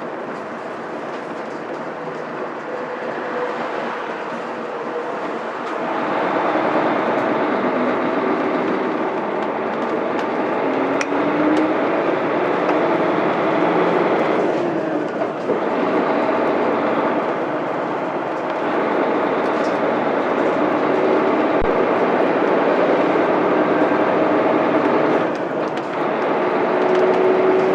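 Mitsubishi Fuso Aerostar city bus with a 6M70 diesel engine driving along. The engine note grows louder about six seconds in and rises in pitch, then dips briefly about halfway through and again near the end, as on gear changes of its five-speed manual gearbox.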